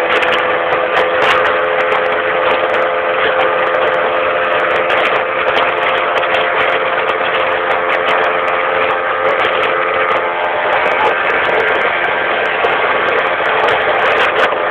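Boat motor running steadily under way, a loud even drone with a whining tone that shifts slightly about ten seconds in.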